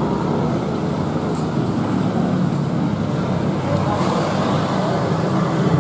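Steady motor-vehicle and road noise: a constant low hum under an even hiss, with faint voices in the background.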